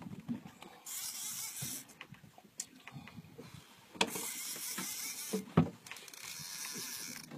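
Jigging reel whirring in two stretches, about a second near the start and about three seconds from the middle on, as line is worked against a fish on a bent rod. Two sharp knocks come about four seconds in and, louder, a moment later.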